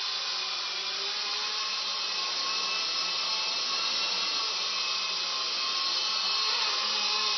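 Blade 120 SR micro RC helicopter's electric motors and rotor blades running steadily in flight: a high, even buzzing whine with a few steady tones through it, getting slightly louder near the end.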